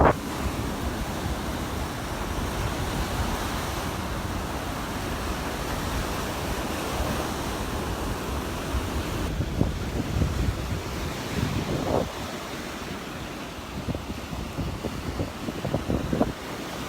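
Surf washing on the beach, with wind buffeting the microphone and a low rumble underneath.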